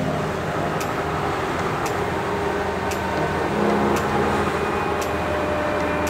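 Fendt Ideal 7 combine harvester running, its engine giving a steady drone.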